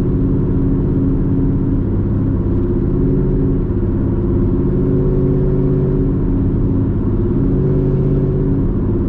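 Chevrolet Camaro's V8 engine droning steadily under way while cruising, heard from inside the car with road noise underneath. The pitch rises and falls slightly with small throttle changes.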